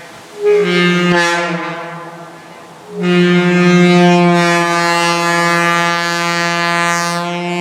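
Locomotive air horn blown twice: a short blast that dies away, then a long steady blast held from about three seconds in.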